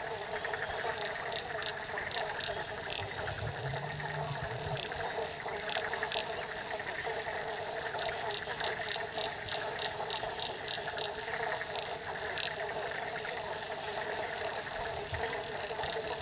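A dense, steady chorus of many frogs calling together, with short sharp calls scattered over it higher up.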